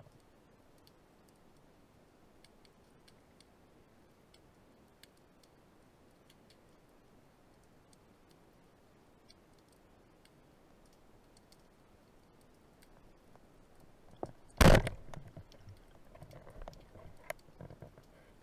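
Underwater, faint scattered clicking runs until about three-quarters of the way through. Then a single loud, sharp crack of a speargun being fired, followed by a few fainter knocks and rustles.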